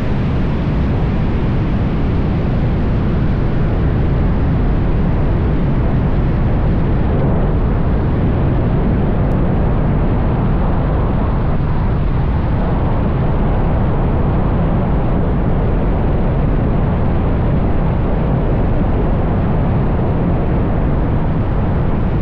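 Wind rushing over a wingsuit-mounted camera's microphone during a wingsuit flight at speed: a loud, steady, deep rush that never lets up.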